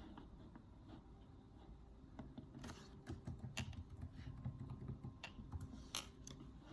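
Typing on a computer keyboard: irregular, faint key clicks that start about two seconds in.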